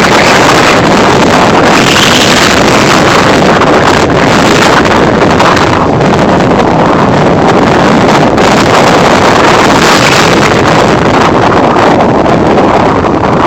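Strong wind blowing across a mobile phone's microphone, a loud steady rush of noise that barely changes.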